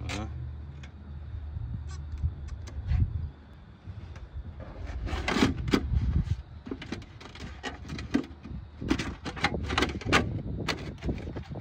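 Soft aluminium roof flashing crinkling and scraping against clay roof tiles as it is pressed down and moulded to their shape by hand. It comes as a dense run of crackles and scrapes from about five seconds in, after a low rumble and a few scattered clicks.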